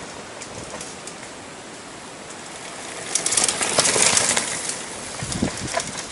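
Downhill mountain bike passing close on a dirt trail: tyres crunching and skidding over loose dirt and gravel, loudest from about three to four and a half seconds in, followed by a couple of low knocks.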